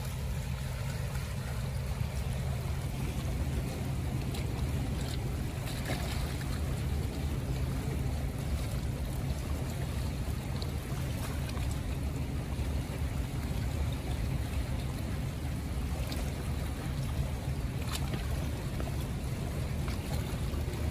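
Steady wash of fast, choppy sea water against a rock seawall, with a constant low rumble and no single loud event.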